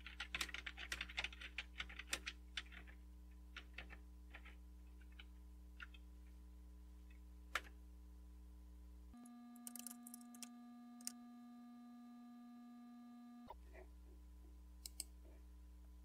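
Computer keyboard typing: a quick run of keystrokes over the first three seconds, then scattered single key clicks. Under it runs a steady low electrical hum that changes tone for about four seconds midway.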